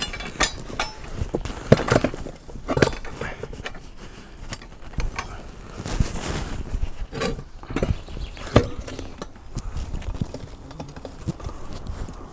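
Irregular knocks, thumps and metallic clinks of a steel car wheel with its tyre being shifted and set down against the steel frame and bead-breaker shoe of a Sealey TC960 manual tyre changer.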